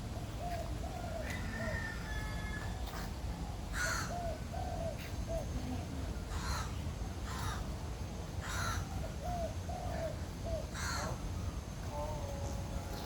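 Birds calling: about five loud, harsh, caw-like calls spaced through the clip over repeated short, lower hooting notes, with a steady low background rumble.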